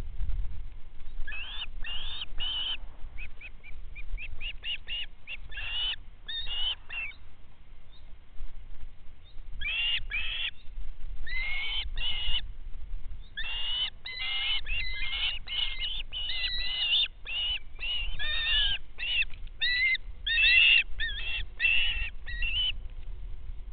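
Birds calling: many short, high calls in quick clusters, over a steady low rumble.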